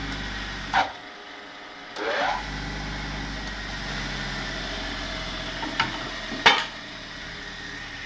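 Motor running steadily with a homemade sandpaper drum spinning, broken by a few short loud bursts of sanding as wood is pressed against the drum; the longest comes about two seconds in and the loudest about six and a half seconds in.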